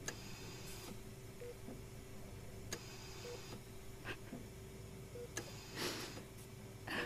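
Hospital patient monitor beeping faintly, one short beep about every two seconds, over a steady low hum, with a few soft clicks and a breathy sound about six seconds in.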